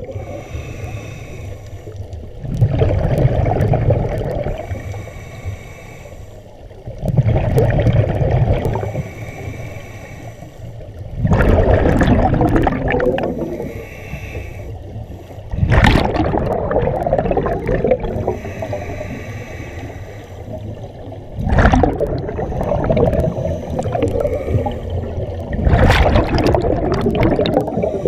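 Scuba diver breathing through a regulator underwater: six bursts of exhaled bubbles rumbling and gurgling, each about two seconds long, coming every four to five seconds, with quieter stretches between them.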